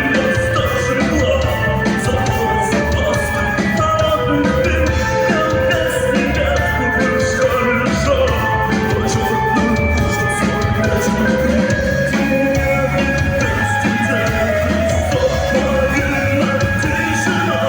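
A rock band playing live, with a drum kit under held, steady instrument notes.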